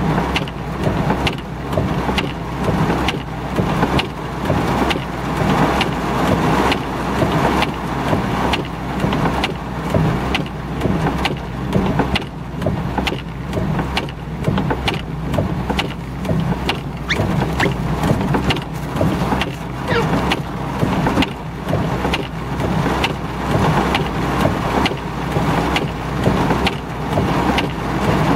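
Heavy thunderstorm rain pelting a car's roof and windshield, heard from inside the cabin as a dense, loud patter of drops, with the windshield wipers sweeping the glass.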